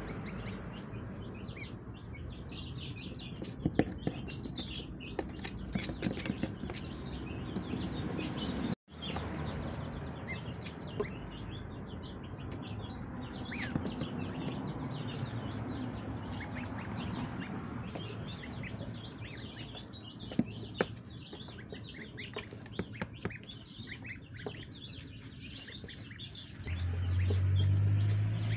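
Goslings and ducklings peeping: many short, high cheeps, one over another. A low rumble comes in near the end.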